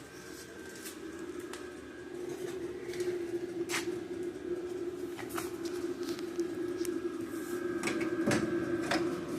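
Scattered light knocks and clicks, about eight of them, from sheet-metal body parts being handled and seated, with a louder knock near the end. A steady hum runs underneath.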